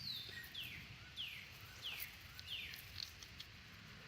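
A songbird calling a series of five falling whistled notes, evenly spaced a little over half a second apart, over a faint outdoor background hiss.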